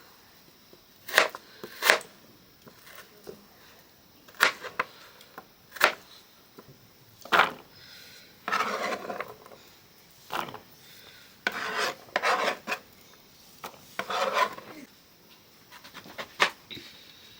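Scattered sharp wooden knocks, about six spread out, with three short bouts of scraping or rubbing in the middle: hand work in a village kitchen.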